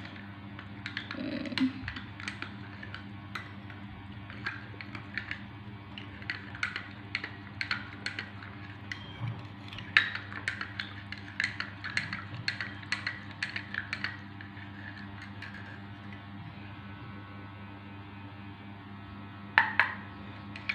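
Metal spoon stirring a chocolate-malt and milk drink in a small drinking glass, clinking against the glass again and again for most of the first fourteen seconds, then one louder clink near the end, over a steady low hum.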